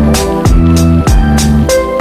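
Background music with a steady drum beat and sustained bass and instrument notes.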